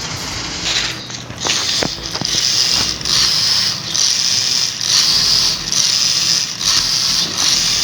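Toy remote-control rock crawler's small electric motors and plastic gearbox whirring and grinding in short repeated spurts as it is driven, with a few sharp clicks at the start.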